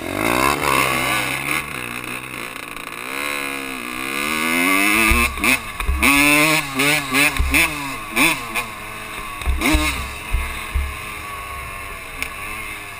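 Honda dirt bike engine accelerating hard through the gears. Its pitch climbs, drops at each shift and climbs again, close up, with wind noise and several low thumps on the helmet-mounted microphone.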